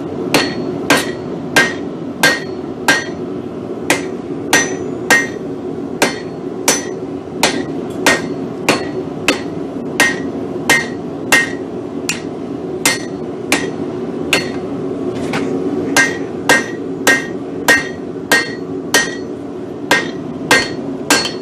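Blacksmith's hand hammer striking red-hot steel on an anvil, knocking the edges off the piece rather than forging it: a steady run of blows, about one and a half a second, each with a short metallic ring. A steady low hum runs underneath.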